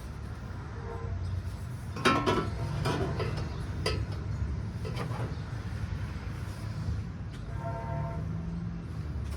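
Metal clanking and ringing as a stainless-steel long-tube exhaust header is worked into the engine bay for a test fit: a few sharp knocks about 2, 3, 4 and 5 seconds in, over a steady low hum.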